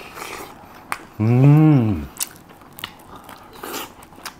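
Crunchy bites and chewing of a fried Korean corn dog, with a few sharp crunches scattered through. About a second in, a loud hummed "mmm" of enjoyment rises and then falls in pitch.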